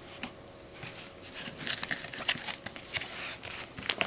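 Baseball trading cards being handled and shuffled through by hand: a run of light rustles and small clicks.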